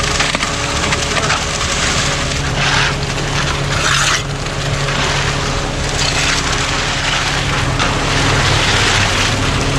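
Heavy equipment engine idling steadily, with short scraping and rubbing sounds several times over it.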